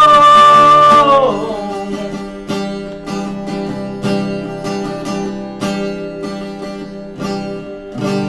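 Acoustic guitar strummed with a man's held sung note that ends about a second in, then strummed chords about twice a second, slowly getting quieter as the song closes.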